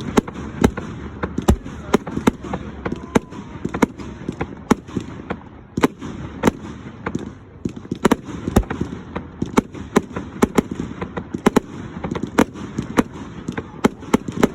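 Fireworks display: a rapid, irregular run of sharp bangs, several a second, with some much louder reports standing out.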